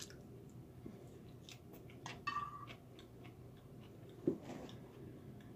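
Quiet chewing of a mouthful of rice, with faint scattered mouth clicks and a soft knock about four seconds in.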